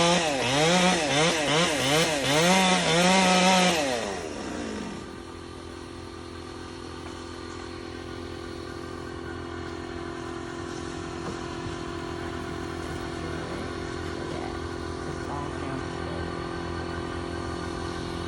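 Chainsaw cutting wood for about four seconds, its engine pitch rising and falling under load. It is then let off and drops to a steady idle.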